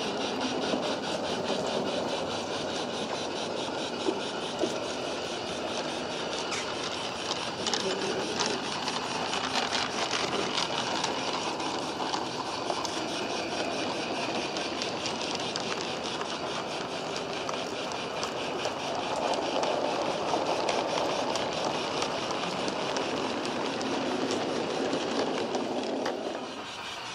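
A G-scale model goods train rolls past, its wagon wheels clattering and clicking steadily over the track. The sound drops away suddenly near the end as the last wagon goes by.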